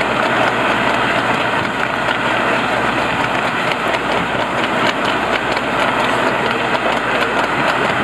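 Steady engine and road noise of a vehicle driving along a dual carriageway at trotting pace.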